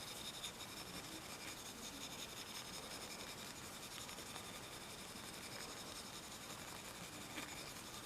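Superfine steel wool rubbed back and forth over a translucent plastic screwdriver handle: a faint, steady scratching to smooth out sanding marks.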